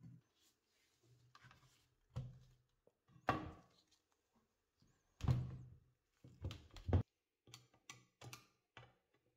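Metal parts of an antique bread slicer being handled and set against its cast-iron frame on a wooden table: a series of separate knocks and thunks, the loudest about three, five and seven seconds in, then a few lighter taps near the end.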